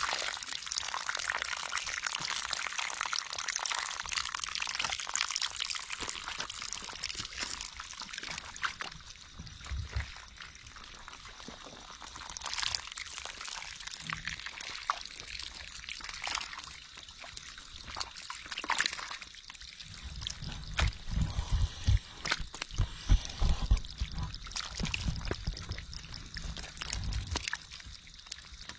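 Water pouring and trickling, loudest in the first several seconds and then fading. In the second half there are dull low thumps, the loudest of them about 22 to 25 seconds in.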